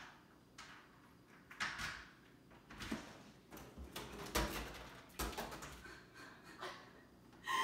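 Apartment front door being unlocked and opened: a string of clicks and knocks from the key, deadbolt and latch, the loudest about four and five seconds in.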